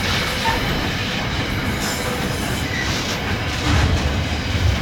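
Container freight train wagons rolling past at close range: a steady rumble and clatter of steel wheels on the rails, with a few faint short squeals from the wheels.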